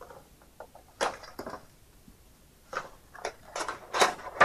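Cardboard Funko Pop box being handled and opened: scattered rustles, scrapes and light clicks, coming thicker and faster in the last second and a half.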